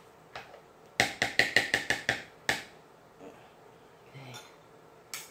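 A spoon knocked rapidly against the rim of a mixing bowl, about eight sharp taps in a little over a second and then one more, to shake off the casserole mixture clinging to it.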